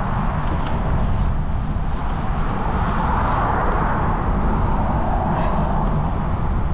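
Wind buffeting the microphone of an action camera on a moving bicycle: a steady, rumbling rush with no engine note.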